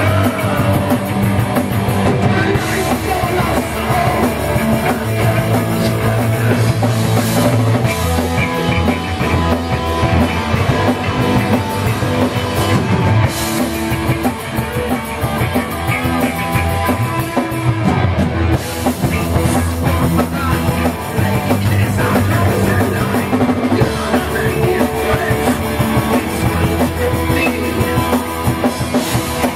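Live rock band playing loud and without a break: electric guitar over a drum kit.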